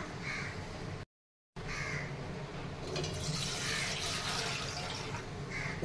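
Water poured from a steel tumbler into an aluminium pot: a steady pouring and splashing that starts after a brief silence about a second and a half in. A sharp knock comes right at the end.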